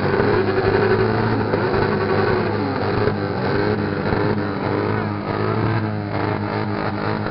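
Several motorcycles with straight-through exhausts running together: a steady engine drone with revs rising and falling over it.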